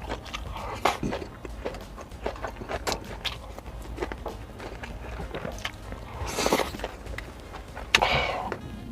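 Close-up mouth sounds of chewing grilled beef intestines: wet smacking and clicking, with two short breathy rushes about six and eight seconds in, over a steady low hum.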